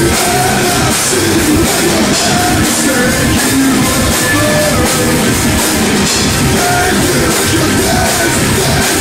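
Stoner rock band playing live and loud: drum kit and guitars, with a singer's voice through the microphone over the top.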